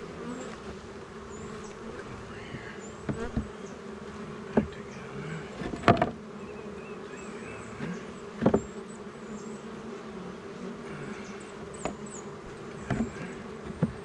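Honeybees buzzing steadily around an open wooden hive, with a scatter of sharp wooden knocks and clicks as the hive frames are gripped and worked loose by hand; the loudest knocks come about six and eight and a half seconds in.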